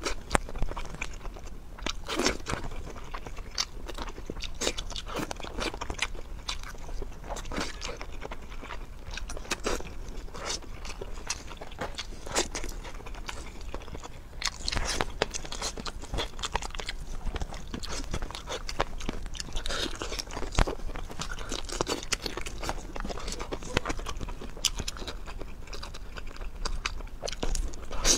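Close-miked eating: a person chewing and biting food, with irregular sharp mouth clicks throughout.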